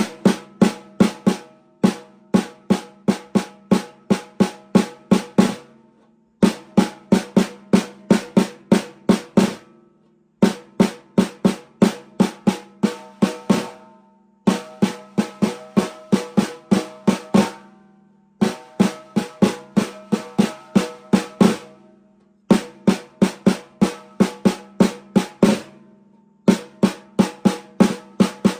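Pearl Roadshow snare drum struck in repeated runs of about a dozen strokes of varying strength, each run lasting about four seconds with a short pause between, the head ringing after each stroke.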